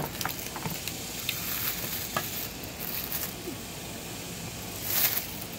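Clear plastic packaging bag crinkling and rustling as hands pull it off a machete, with small crackles throughout and a louder rustle about five seconds in.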